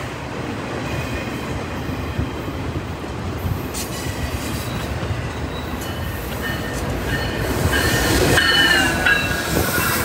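Freight train of autorack cars rolling past close by, a steady rumble of wheels on rail with high, wavering wheel squeal that sets in about four seconds in. It grows louder near the end as an oncoming locomotive draws alongside on the adjacent track.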